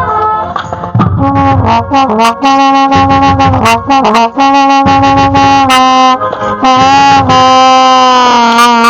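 Trombone played loud and close to the microphone: a quick run of short notes, then long held notes with slide bends into and out of pitch.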